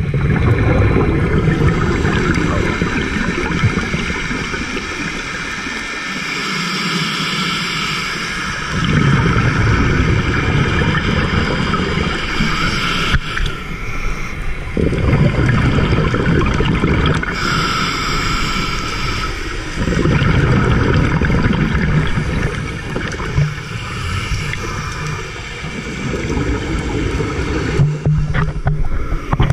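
Scuba diver's regulator breathing underwater: slow cycles of a hissing inhale followed by a longer rumble of exhaled bubbles, about five breaths.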